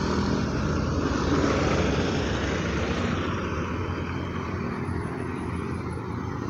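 A motor vehicle passing on the road, its engine and tyre noise swelling in the first second or two and then slowly fading.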